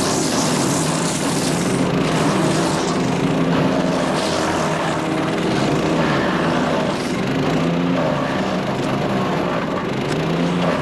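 Power King wood chipper shredder's Kohler CH440 single-cylinder engine running at full throttle over a dense grinding noise. The engine note dips and recovers several times as it takes load from material fed into the cutting drum.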